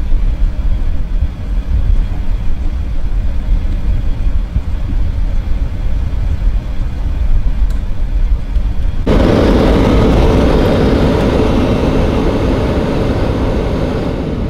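Vehicle running, heard from inside the cab: first a low, uneven rumble, then about nine seconds in a sudden change to louder, steady engine and tyre noise as it drives over snow on lake ice.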